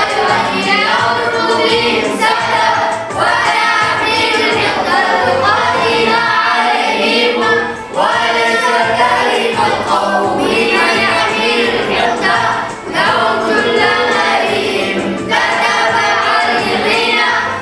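Sung recitation of a classical Arabic poem in the tawil metre, voices chanting melodic phrases with short breaks between lines.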